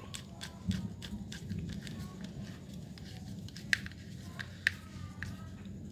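Light, irregular clicks and ticks from a screwdriver turning the centre screw of a grass-cutter recoil starter pulley, with the plastic starter parts knocking in the hand. Two sharper clicks come about three-quarters of the way through, over a steady low hum.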